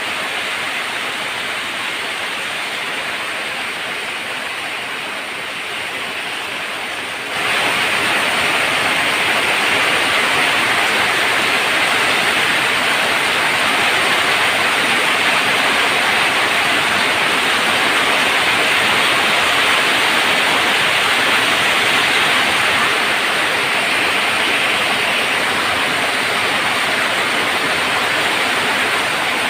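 Heavy rain falling on a tin roof, a steady dense hiss that turns abruptly louder and brighter about seven seconds in.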